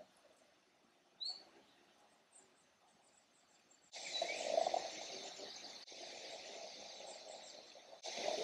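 Birds chirping outdoors: a single short rising chirp about a second in, then from about four seconds in a suddenly louder, denser chorus of chirps.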